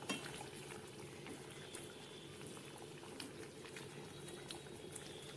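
Thick potato curry gravy simmering in a steel pot: a faint, steady bubbling with scattered small pops, while a spatula stirs through it.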